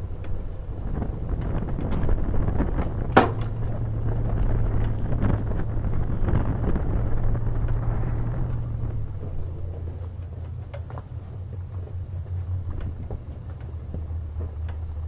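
Low, steady vehicle rumble with wind noise on the microphone. The hum drops slightly in pitch and level about nine seconds in, and there is one sharp click about three seconds in.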